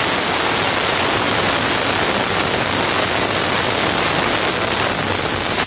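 Pressure cooker whistling: a loud, steady hiss of steam escaping from the weight valve, which cuts off suddenly at the end. The whistle means the cooker has reached pressure and is one of the whistles counted to time the cooking.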